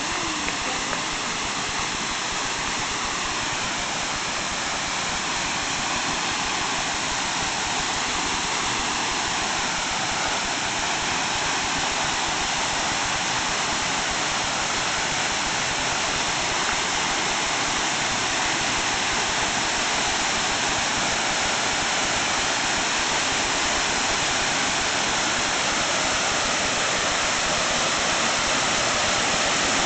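Waterfall running high after heavy rain, its water pouring into a plunge pool in a steady rushing hiss that grows gradually louder.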